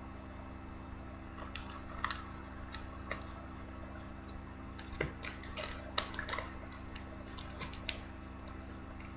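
A trading card being worked into a rigid plastic card case: scattered small plastic clicks and scrapes, sharpest about five and six seconds in, over a steady low hum.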